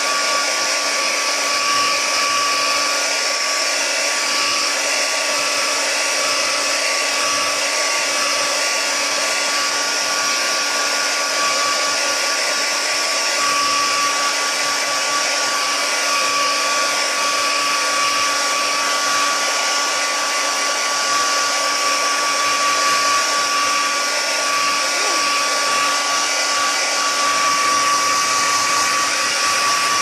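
Handheld hair dryer blowing steadily: a constant rush of air with a thin, steady whine.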